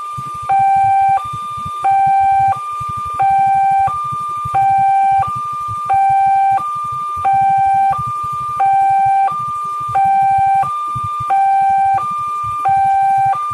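Indonesian railway level-crossing warning alarm sounding a repeating two-tone signal, a louder low tone and a higher tone swapping about every two-thirds of a second. It warns that a train is approaching and the crossing is closed.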